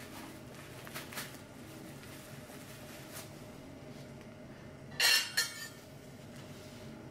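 Kitchenware clattering: two quick metallic knocks about five seconds in, ringing briefly, over a steady low hum with a few faint clicks.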